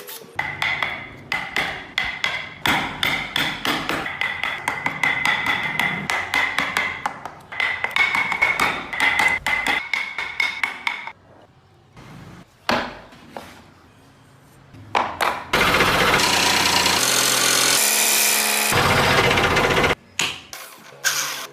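A hammer taps a steel carving chisel into wood in quick repeated strikes, several a second, each with a metallic ping. After a few scattered knocks, a power tool runs steadily for about four seconds, then the tapping resumes briefly.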